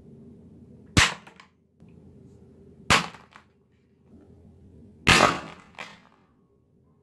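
Three sharp gunshot-like bangs about two seconds apart as toy dart guns fire suction-cup darts, the last one longest, each followed by a fainter click.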